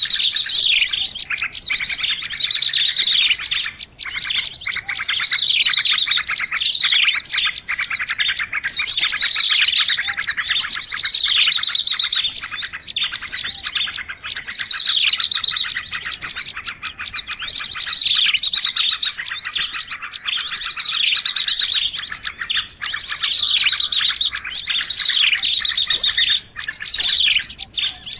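Dense, continuous chirping and twittering of many small birds, with quick calls and trills overlapping without pause. It is a recorded lure call for attracting small birds.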